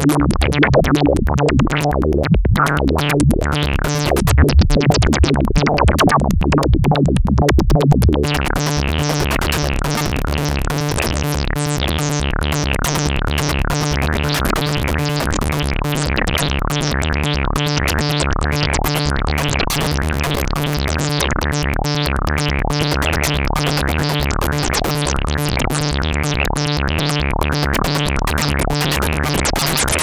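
Electronic synthesizer loop from an Ableton Operator synth: a repeating pitched sequence whose timbre keeps shifting as recorded knob movements on its oscillator levels, filter and other parameters play back in loop. About eight seconds in, the sound turns brighter and busier.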